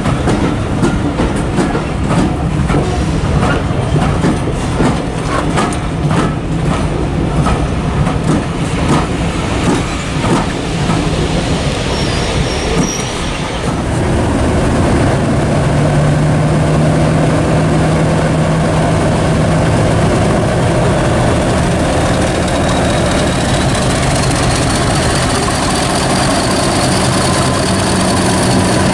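Train wheels clicking over rail joints as coaches roll by, then a British Rail Class 50 diesel locomotive's English Electric engine running steadily as it passes, with a faint high whistle over it in the later part.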